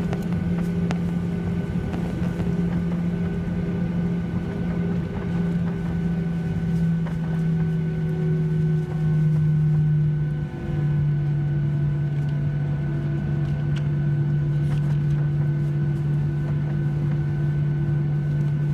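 Cabin noise inside a Boeing 737-800: a loud, steady hum from its CFM56 jet engines, with several steady tones that dip slightly in pitch about halfway through.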